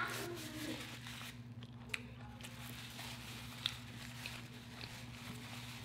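Faint rustling of a paper napkin as hands are wiped, with a few small clicks, over a low steady electrical hum.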